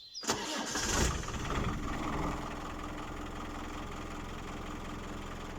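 A vehicle engine starts with a loud burst, then runs at a steady idle and cuts off abruptly at the end.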